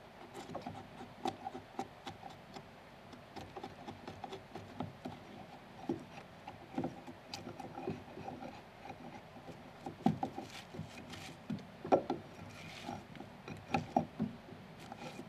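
Chisel paring and scraping the wood inside a mortise cut into a log, irregular knocks and scrapes of the blade on the timber, with wood shavings rustling as they are cleared out by hand. The sharpest knocks come in the last few seconds.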